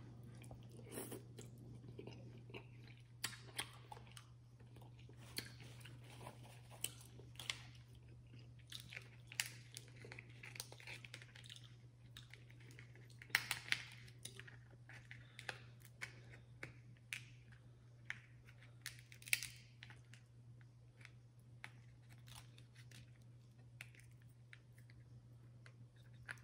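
Close-miked shellfish eating: scattered sharp cracks and clicks of shell being broken open, with chewing, over a steady low hum.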